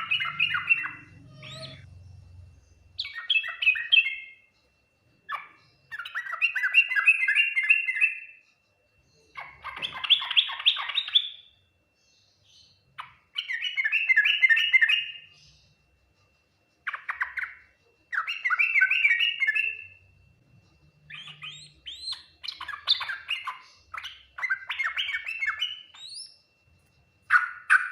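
Yellow-vented bulbul (trucukan) singing: about ten bubbly, chattering phrases, each a second or two long, with short pauses between them.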